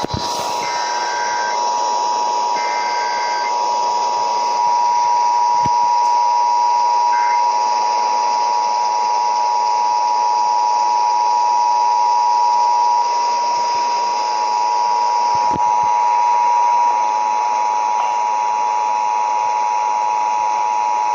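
Emergency Alert System attention signal: a loud, steady two-tone drone sounding the start of a required monthly test, over a hiss of broadcast noise. Two brief higher two-note bursts break in within the first few seconds.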